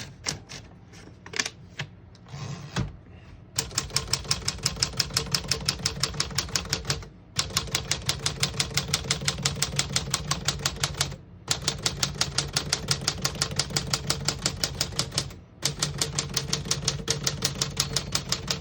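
1949 Smith-Corona Sterling manual portable typewriter typing a test line through all its keys: a few scattered clicks at first, then rapid, even keystrokes in four runs with brief pauses between them. Every key strikes cleanly, none skipping or sticking.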